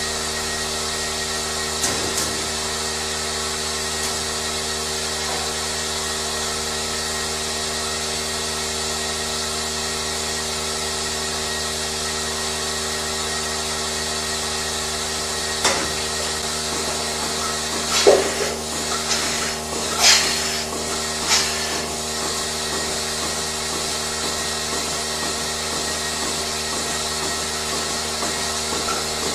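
Steady machine hum with several constant tones, broken by a few sharp knocks and clatters a little past the middle and near the end.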